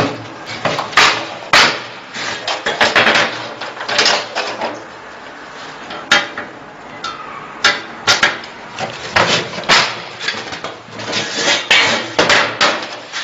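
Irregular clanks and knocks of hard metal parts being handled and struck, a dozen or so sharp hits at uneven intervals.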